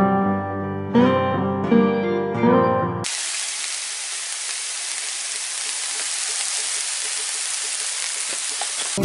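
Background music with a keyboard melody for about three seconds, then a sudden cut to food sizzling in a hot frying pan, a steady hiss for about six seconds. Guitar music comes in at the very end.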